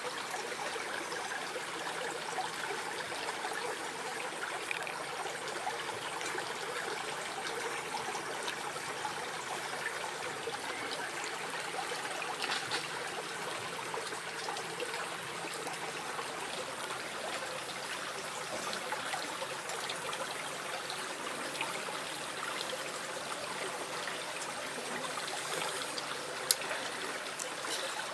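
Shallow stream steadily trickling over rocks, with a single sharp click near the end.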